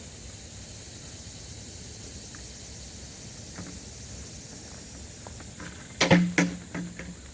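A short cluster of loud knocks with a low hum under them about six seconds in, over a steady high outdoor hiss.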